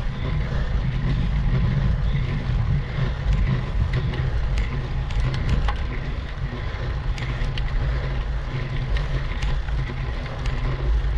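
Steady low rumble of riding noise on a bike-mounted camera's microphone while a road bicycle climbs on asphalt, with scattered light ticks.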